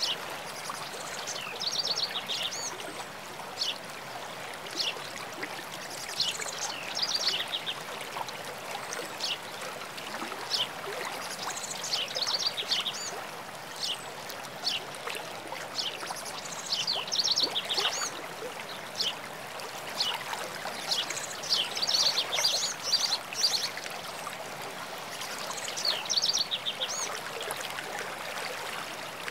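Steady rush of running water, with songbirds singing short phrases of quick high notes every few seconds.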